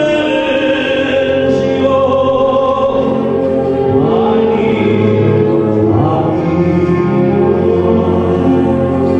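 A tenor singing long held notes into a microphone over backing music with choir-like voices.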